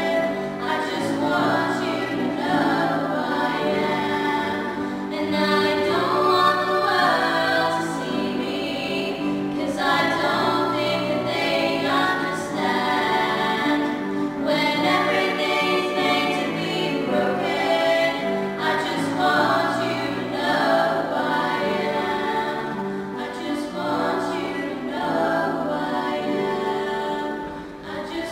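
Three young female voices singing a slow pop song together in harmony as a small vocal group.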